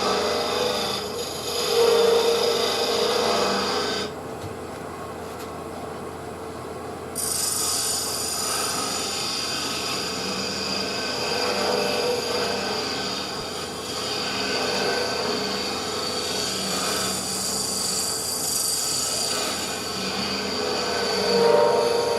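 A wood lathe spins a maple burl bowl while a tool scrapes against the turning wood, a steady rasping over the lathe's hum. About four seconds in, the scraping drops away for some three seconds while the lathe keeps humming, then it starts again.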